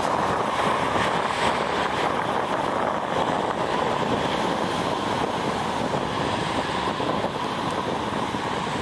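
Steady, even rushing drone of the ShinMaywa US-2 flying boat's four turboprop engines in flight, heard from far off.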